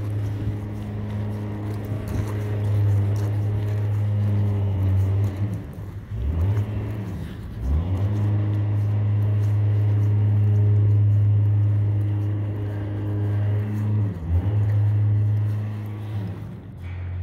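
A motor or engine running with a steady low hum. Its pitch drops and comes back a few times, about six seconds in and again near fourteen seconds.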